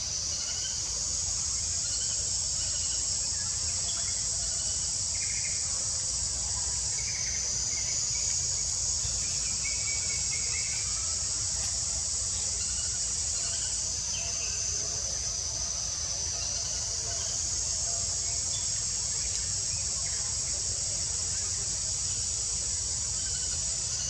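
Steady, high-pitched drone of a forest insect chorus that shifts slightly in pitch a few times.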